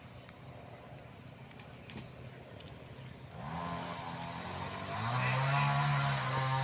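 Faint high chirping, then about halfway through a chainsaw starts running at a steady high rev, cutting into the sengon trunk. It gets louder and drops slightly in pitch under load about three-quarters of the way in.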